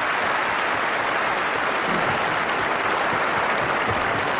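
A large audience applauding: steady, dense clapping from many hands.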